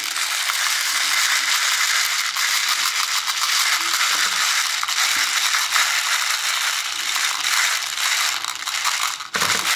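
Pointed copper-plated .177 air gun pellets rattling in a plastic H&N pellet shaker box as it is shaken, the pellets dropping into its sorting holes. A dense, continuous rattle that breaks off briefly shortly before the end.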